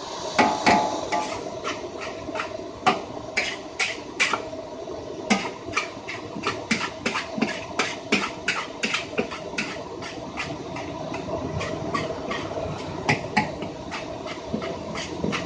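Metal spatula scraping and clanking against a wok while a large batch of fried rice is stir-fried: sharp, irregular strikes two or three times a second over a steady sizzling hiss.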